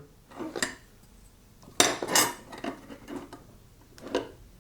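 Small steel workshop parts clinking and knocking together as they are handled: a few separate clanks, the loudest cluster about two seconds in.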